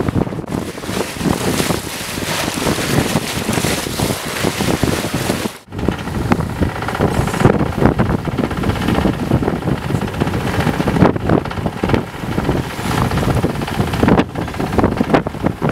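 Wind buffeting the microphone over water rushing along the hull of a keelboat sailing heeled in a fresh breeze, in uneven gusts. The sound cuts out for a split second about five and a half seconds in.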